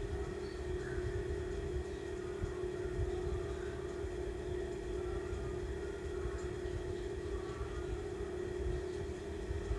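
Steady low background hum with an uneven low rumble under it.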